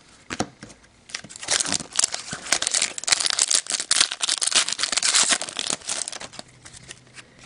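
Foil wrapper of an Upper Deck hockey card pack crinkling and tearing as it is handled. The dense crackling starts about a second in and dies away about six seconds in.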